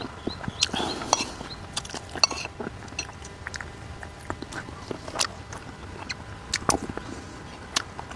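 Close-up eating sounds: chewing and mouth smacks while eating fish soup, with scattered short sharp clicks.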